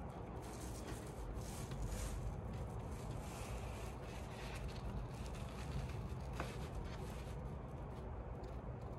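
Scissors cutting along the edge of a paper template, cut after cut in irregular strokes, over a low steady hum.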